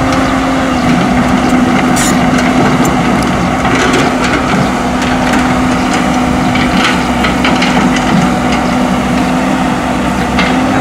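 A vehicle engine running steadily, a constant hum, under a rough crunching, rattling noise with scattered small clicks.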